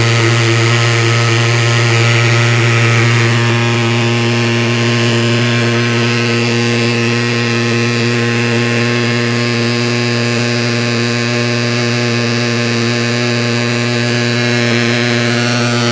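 Thermal fogging machine's pulse-jet engine running at a steady pace, a loud, even, low buzzing drone as it puts out fog.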